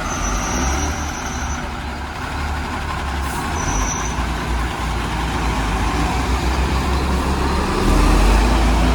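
Heavy diesel engine running steadily, getting louder near the end. A thin high tone sounds twice, once in the first second and a half and again briefly about four seconds in.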